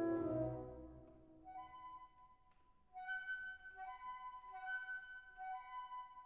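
Background music: a held low chord fades out in the first second, then a high melody of short rising two-note figures repeats from about halfway through.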